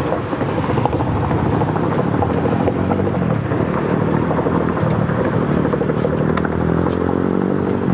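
Supermoto motorcycle engine running steadily at low revs, its pitch holding nearly even throughout.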